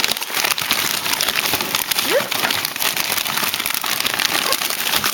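Plastic frozen-food packaging crinkling and rustling as it is handled, a dense run of fine crackles.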